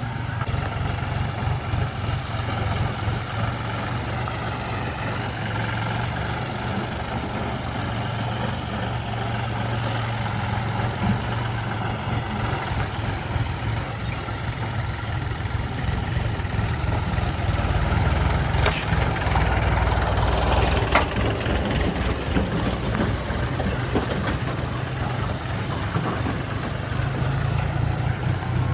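Diesel engines of a backhoe loader and tractors running steadily during mud loading. From about 16 to 22 seconds in, the engine note gets rougher and louder, with a run of short clicks and knocks.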